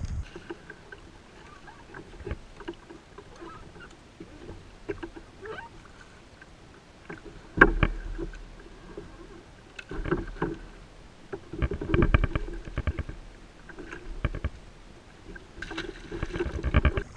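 Fishing gear being handled in a plastic kayak: scattered knocks against the hull, the sharpest about seven and a half seconds in, and runs of rapid clicking midway and near the end.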